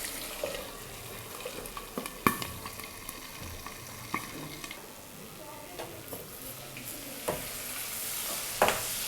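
Onions, garlic and chillies sizzling in hot mustard oil in a pan, stirred with a spatula that clicks against the pan a few times.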